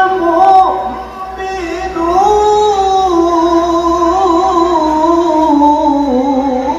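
Quranic recitation (tilawah) by a male reciter: a long, ornamented melodic phrase. After a short break about a second in, the pitch wavers and steps slowly downward toward the end.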